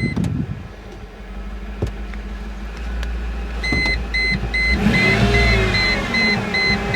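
Mercedes G-Wagon warning chime beeping rapidly, about three beeps a second, over the steady hum of the idling engine. The beeping stops for a few seconds and resumes a little past halfway, and a wavering whir joins about five seconds in. The chime signals flood-damaged electrics that are failing.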